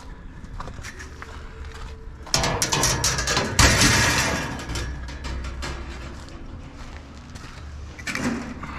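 Scrap metal being handled: a sudden clatter of metal pieces about two seconds in, then a heavy metallic crash that rings down over a second or two, and a shorter clatter near the end.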